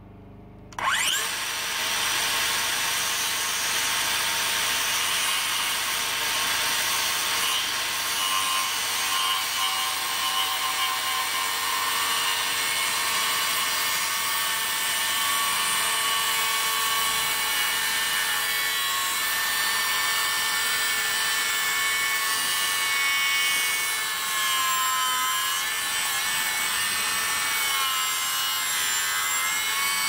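DeWalt cordless circular saw spins up about a second in and runs steadily, cutting through a 5-by-8-inch timber. Its pitch wavers and dips in the last few seconds.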